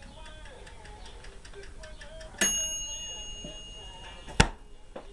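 Metal clinking while hot powder-coated bullets are handled at a toaster oven: a strike about halfway through that rings with a clear bell-like tone for about two seconds, then one loud sharp click near the end.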